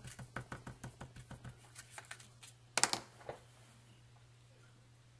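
ZIG 2-way glue pen tip dabbed quickly on cardstock: light taps about six a second, slowing and stopping about two seconds in. Near three seconds comes one short, louder clatter as the paper word is handled.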